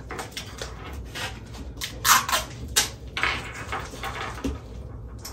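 Plastic wrapper of a Big Mama pickled sausage crinkling and crackling in someone's hands while they struggle to tear it open, with a few sharp crackles about two and three seconds in.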